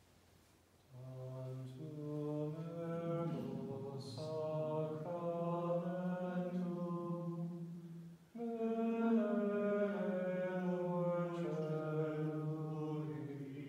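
A priest's voice chanting a slow hymn unaccompanied, holding each note and moving step by step, in two long phrases with a short breath about eight seconds in.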